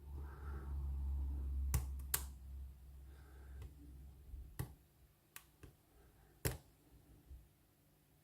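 Sharp, scattered clicks of a hook pick and tension tool working the pins inside a Lockwood oval lock cylinder, about six spread over the few seconds, over a low handling rumble that fades out about halfway.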